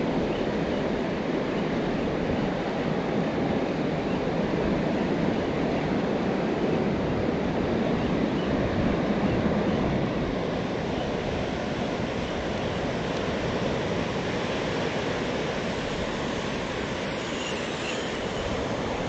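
Steady rushing of fast-flowing, churning water in a concrete canal, with wind buffeting the microphone.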